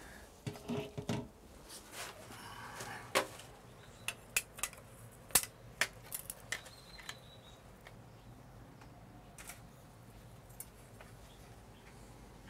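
Hand tools (a steel ruler, a spirit level and a marker pen) clicking and clinking against glazed ceramic wall tiles during marking out. There are a dozen or so sharp clicks in the first half, then only faint background with an occasional tick.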